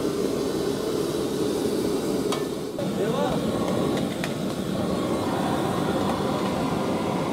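Open gas burners under high flame running with a steady rush, while a metal ladle clinks and scrapes in a steel frying pan a few times.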